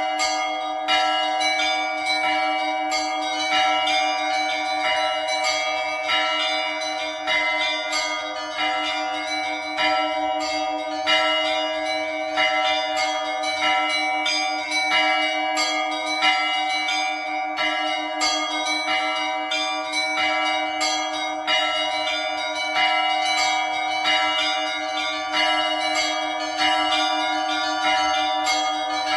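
Russian Orthodox church bells rung by a bell-ringer (zvon): small high bells struck in a quick, continuous pattern over the sustained hum of larger bells, with a heavier stroke about once a second.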